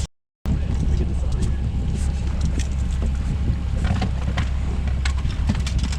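Fishing boat's motor running steadily, with wind noise on the microphone. The sound drops out completely for a moment just after the start.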